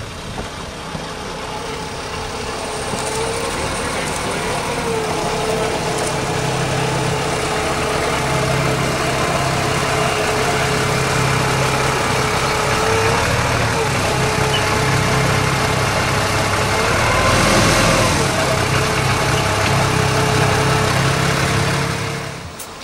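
Small narrow-gauge diesel locomotive running as it approaches and passes close by, its engine growing steadily louder and loudest about three quarters of the way through. A steady whine rides on the engine and rises briefly in pitch a few times. The sound cuts off suddenly near the end.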